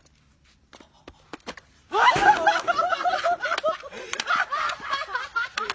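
Faint clicks, then about two seconds in a loud burst of high-pitched laughter breaks out and continues in quick repeated peals.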